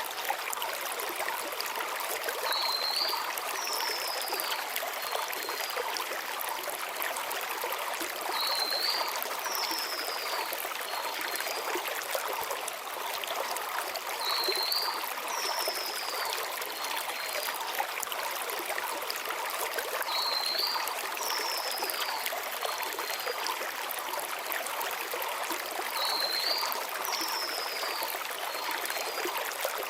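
Mountain stream flowing over stones, a steady rush of water. Over it a small songbird repeats the same short, high phrase about every six seconds: a brief rising note, a falling slur, then a few faint short notes.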